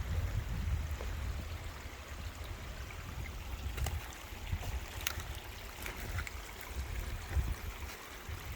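Steady trickle of running rainwater, with a low rumble on the microphone and a few light clicks.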